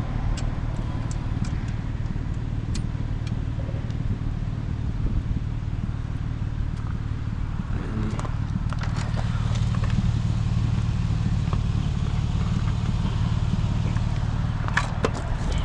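Vehicle engine idling steadily, with scattered light clicks and taps and a few sharper clicks near the end.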